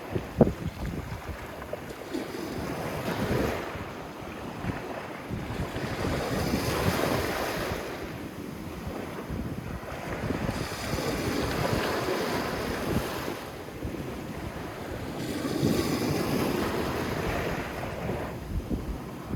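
Sea waves breaking and washing up on a sandy beach, surging and falling back about every four to five seconds, with wind buffeting the microphone.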